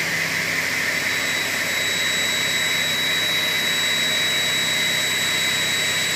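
ACK 700 up-cutting circular saw, its blade rising from beneath the table to cut through a clamped aluminium block: a steady, high-pitched whine of the blade in the metal that holds constant throughout.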